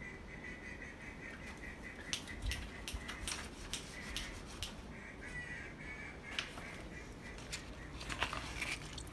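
A long knife slicing through a smoked brisket's crusty bark on butcher paper: scattered crisp clicks and crackles, with a cluster of them near the end.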